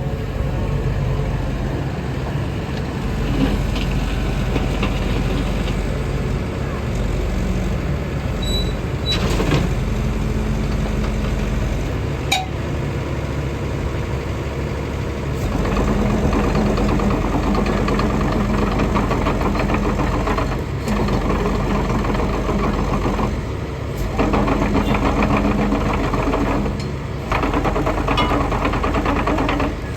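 XCMG XE85DA excavator's diesel engine running steadily, growing louder and fuller a little past halfway, with a few brief dips in level near the end. A couple of sharp clicks come about a third of the way in.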